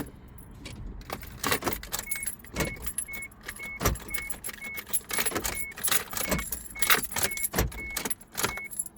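A car's warning chime beeping steadily about twice a second, starting about two seconds in, over irregular clicking and rattling as another attempt is made to start a Suzuki Vitara XL7 that won't crank.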